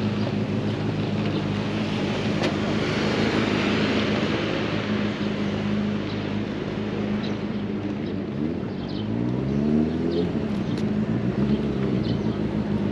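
Street traffic: a motor vehicle engine running with a steady low hum, and a swell of passing-vehicle noise a few seconds in. About eight seconds in, an engine accelerates, its pitch rising for a couple of seconds.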